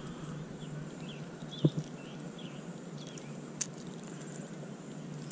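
Quiet outdoor ambience with a steady low hum, a few short high chirps in the first half, and two small clicks, one under two seconds in and one about three and a half seconds in, as a hard fishing lure is handled.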